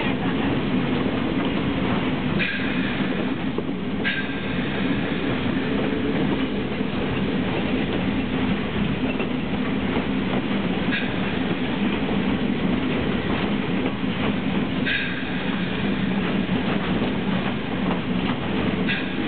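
2-6-2 steam locomotive running down the track, heard from inside its cab as a steady, dense mechanical rumble. A few brief high-pitched squeals come and go, near the start, in the middle and near the end.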